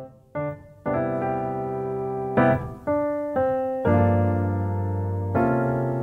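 Background music: a soft piano played in slow chords, a new chord struck every second or so and left to fade.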